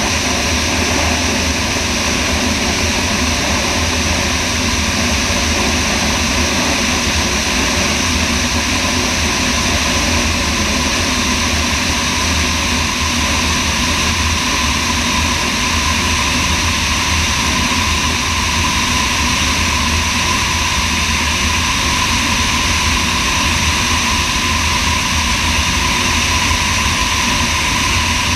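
Sonex light aircraft's engine and propeller running steadily in flight, heard from a camera mounted under the wing: a loud, unchanging drone with a steady whine over a rush of noise.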